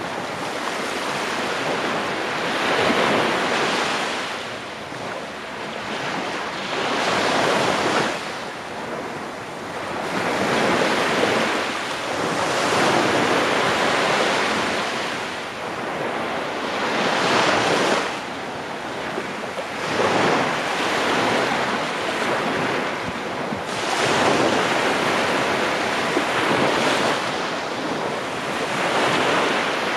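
Small waves breaking and washing up over a sandy shore, a rushing hiss of surf that swells and fades every few seconds.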